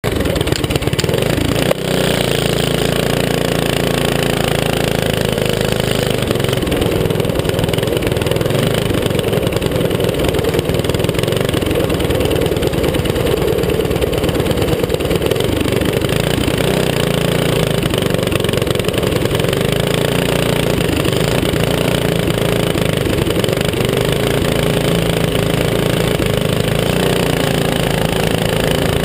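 Racing go-kart's small engine running hard throughout, its pitch rising and falling as the kart laps the oval, with wind noise on the kart-mounted microphone. There is one sharp knock about two seconds in.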